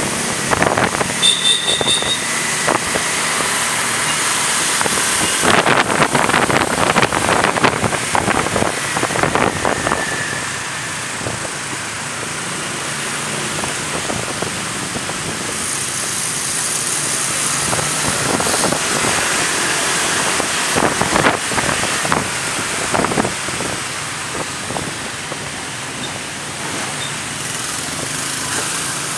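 Wind rushing and buffeting over the microphone of a camera on a moving motorcycle, with motorbike and car traffic underneath; the buffeting comes in heavier gusts in the first third and again past the middle.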